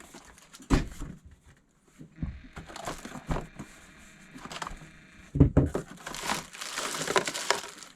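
Packaging being unboxed by hand: crinkling and rustling, with a few sharp knocks as the contents are handled, and the crinkling busiest in the last few seconds.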